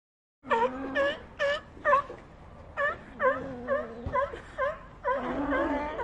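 An animal giving a series of short, pitched cries, about two a second, each dipping and rising in pitch, over a lower steady tone.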